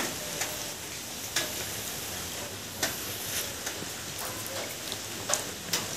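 Steady outdoor background hiss with a few faint, scattered clicks.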